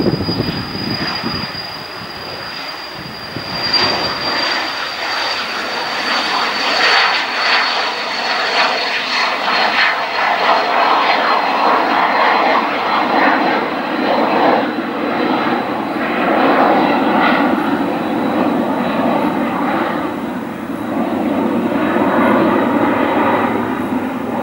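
HondaJet business jet on its take-off roll and climb-out, its two over-the-wing GE Honda HF120 turbofans at take-off power. A high whine falls slowly in pitch over a broad jet roar that swells after the first few seconds and then holds.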